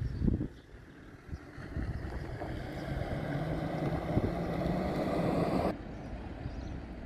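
A motor vehicle's engine running, growing louder over a few seconds and then cut off abruptly near the end; a short knock comes right at the start.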